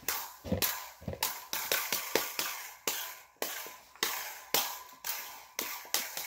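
A quick, uneven series of sharp clicks, about three to four a second, each dying away quickly.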